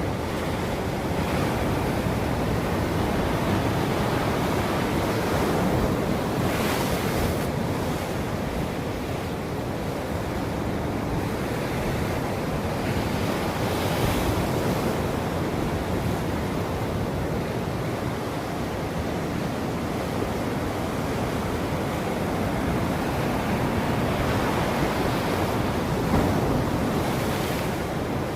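Ocean surf: a continuous wash of waves, with a few louder hissing surges as waves break.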